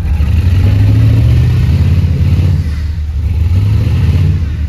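Off-road buggy's engine revving hard under load as it climbs a muddy embankment. One long rev runs through the first half, eases off about three seconds in, then a second rev comes before it drops back near the end.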